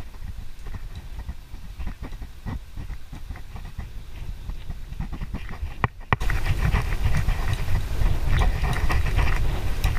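Bicycle ride: wind rumbling on the handlebar camera's microphone, with short rattles and knocks from the bike over cracked pavement. About six seconds in it cuts suddenly to a louder, denser rush of wind.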